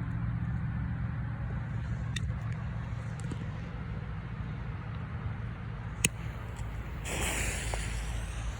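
A single sharp crack about six seconds in, fitting a small firecracker going off. About a second of loud hissing follows it. A steady low engine-like hum runs underneath throughout.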